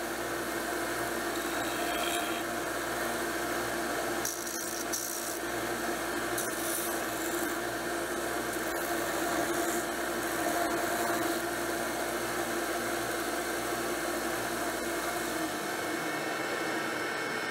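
Small belt sander running steadily while the wooden handle scales of a knife are ground against its abrasive belt: a constant motor hum under the noise of wood being sanded.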